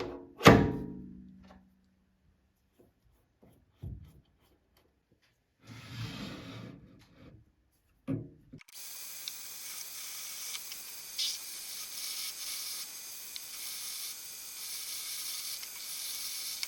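A metal clang that rings briefly, then a few knocks on a lathe. About halfway through, a steady high hiss of the lathe running and drilling the 5 mm hole in the workpiece starts up and carries on.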